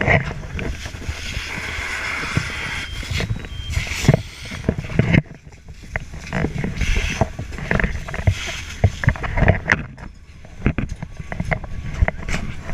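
Close knocks, bumps and rustling of a firefighter's turnout gear and helmet-mounted camera as he moves over gravel, over a steady low rumble. A hiss rises from about one second in and fades around four seconds.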